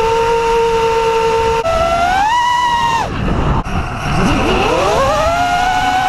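FPV racing quadcopter's brushless motors whining, the pitch following the throttle. The whine holds steady, steps up and rises, drops sharply about three seconds in as the throttle is cut, then climbs back up over the last two seconds as power comes back on.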